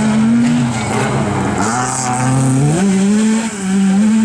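Rally car engine revving hard through a loose-surface corner, its pitch dipping and then stepping back up with throttle and gear changes, with a brief hiss about two seconds in.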